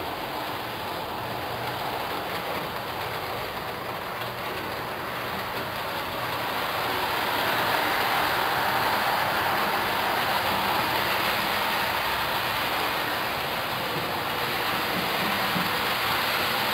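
Bachmann OO-gauge BR Standard Class 4MT tank model locomotive and its coaches running at speed on model track: a steady rolling hiss of wheels on rails, with no whine from the mechanism. It grows louder about six seconds in and stays up.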